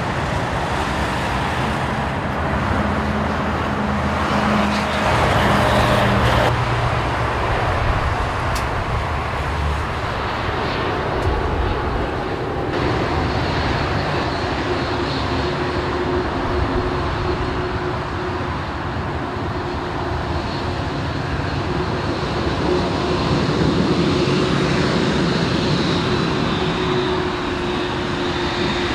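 Boeing 787-8's jet engines running at low taxi power: a steady rushing hum. A thin high whine and a low drone come through more clearly from about halfway on.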